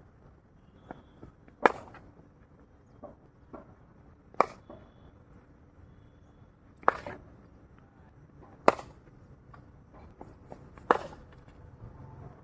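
Cricket bat striking a ball again and again: five loud, sharp cracks about two seconds apart, each with a short ring, and fainter knocks between them.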